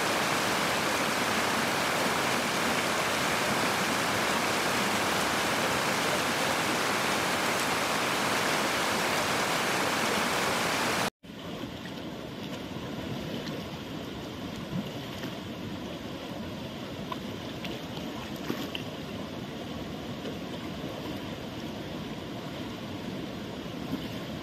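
Steady rush of river water, a loud even hiss. About eleven seconds in it cuts to a quieter flow with a few small splashes from elephants wading and rolling in the river.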